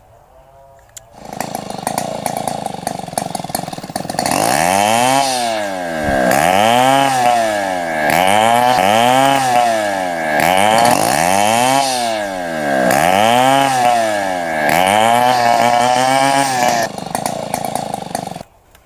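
A small engine revving up and down over and over, about once every second and a half. It builds up over the first few seconds and cuts off suddenly near the end.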